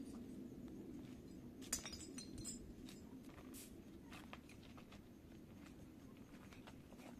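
Faint footsteps on stony gravel ground, a scatter of soft clicks, over a steady low background hum.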